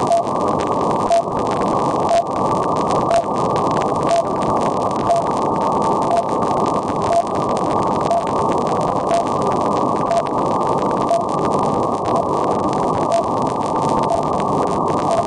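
Shortwave receiver audio of the RWM time-signal station on 9996 kHz: a short beep tick once a second over a steady hiss of static, heard through a narrow receiver filter.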